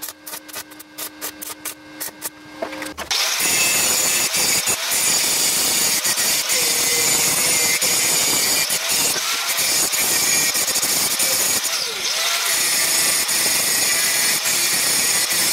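Background music with a quick, even beat, then about three seconds in a handheld angle grinder cuts in suddenly and loudly, grinding down welds on steel in a steady shower of sparks.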